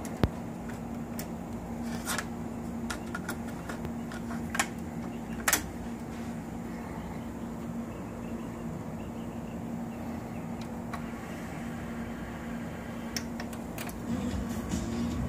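Harman Kardon CD491 cassette deck being loaded: a few sharp plastic clicks and clacks in the first six seconds as the cassette door is opened, a tape put in and the door shut, over a steady low hum. A few softer clicks follow near the end.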